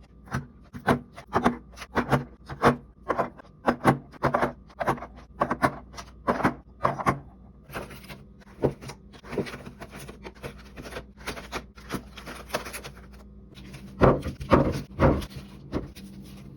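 Repeated scrubbing strokes on a hard surface, about two a second, fainter through the middle and loudest again near the end.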